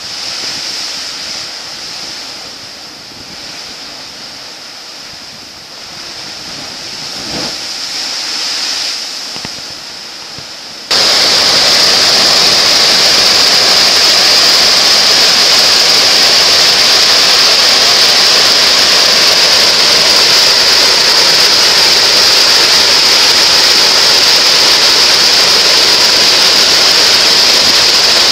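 Wind and surf hissing unevenly. About eleven seconds in it cuts suddenly to the loud, steady rush of a large waterfall.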